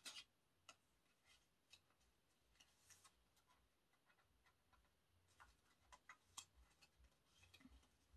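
Faint, irregular clicks and taps of photocards being handled and slid into the plastic pocket pages of a card binder.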